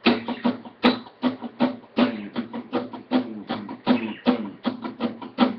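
Guitar strummed with a pick in an even, steady rhythm of about three to four strokes a second, each stroke starting with a sharp pick click over a ringing chord.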